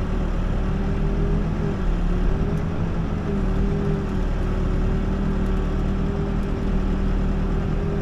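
Backhoe's diesel engine running at a steady speed, heard from inside the operator's cab.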